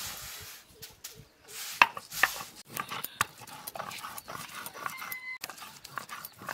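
Knife chopping ginger and garlic on a wooden board: sharp, irregular knocks of the blade on the wood.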